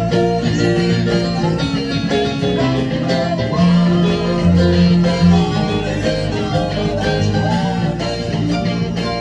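Instrumental music played on a synthesizer keyboard, with held chords over a low bass line and no singing.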